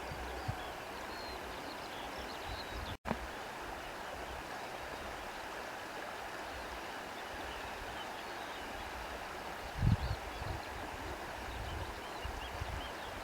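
Breeze blowing steadily through grass, a soft even rustling hiss. Wind buffets the microphone in low thumps about ten seconds in, and the sound cuts out for an instant about three seconds in.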